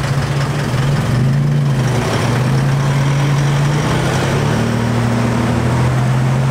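Several car engines running at low revs in slow-moving traffic. There is a steady low hum whose pitch shifts every so often as different vehicles pass close by.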